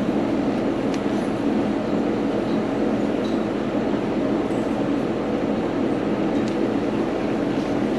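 Milking system's vacuum pump running with a steady, even drone during milking.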